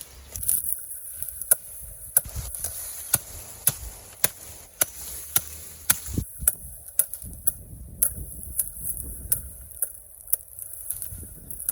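Repeated sharp chopping strikes, about two a second, of a blade cutting through thick, cane-like elephant grass stalks.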